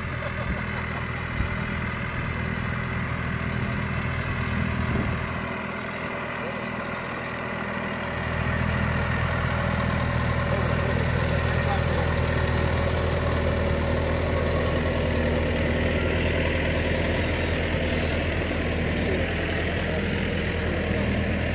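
John Deere tractor's diesel engine running steadily, getting louder from about eight seconds in.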